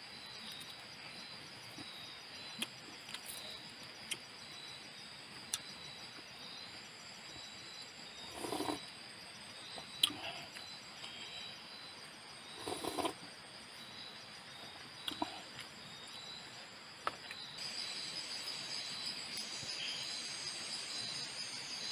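Rainforest ambience: a steady high drone of insects pulsing a few times a second, with scattered sharp clicks and two short, louder rustling noises about a third and two-thirds of the way through.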